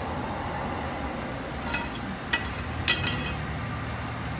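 A few sharp metallic clinks with a short ring, from tools working on the exhaust under the car, over a steady low hum. The clinks come close together from about a second and a half in.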